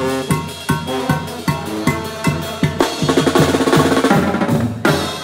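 Tamborazo band playing live: trumpets and sousaphone over a steady beat of bass drum, snare and cymbals. About halfway through the drums and cymbals break into a roll under held brass notes, which stops suddenly just before the end.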